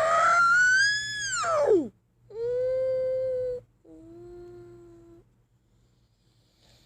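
Brachiosaurus sound-effect calls. First comes a loud call that rises and then falls away steeply. It is followed by a steady, held call, and then a third call that is lower and quieter.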